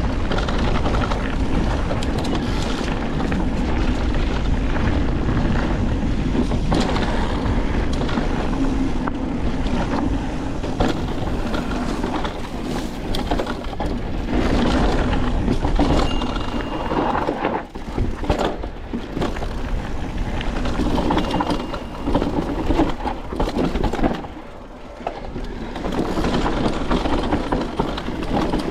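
Mountain bike riding fast over a dirt singletrack trail: wind buffeting the microphone with a steady rumble, and the tyres and frame clattering and knocking over rough ground. There are two short high squeaks near the middle and a brief lull a few seconds before the end.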